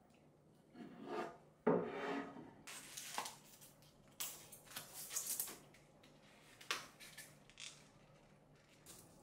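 Handling noises from an oak cutting board and woven straw placemats: a wooden knock and slide about a second in, then irregular rustling of the paper tags and rubbing of the woven mats as hands work at them.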